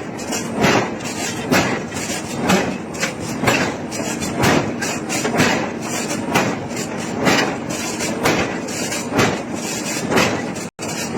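Heavy hammer blows on iron during forging, evenly spaced at about one a second over continuous noise; the sound cuts out for an instant near the end.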